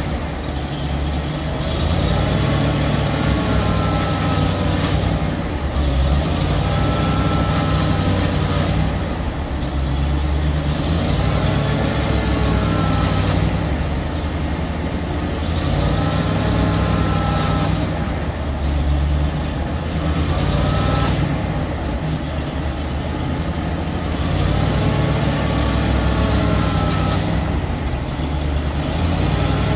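1985 Ford F600 bucket truck running, its 6.1L V8 gas engine a steady drone, with a higher tone that rises and falls back every two to three seconds.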